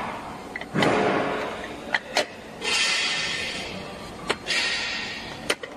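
A stainless-steel gummy-making machine and its mould trays being handled: sharp metal clicks and knocks, and three short rushing, scraping noises that each fade over about a second, as trays and a drawer slide.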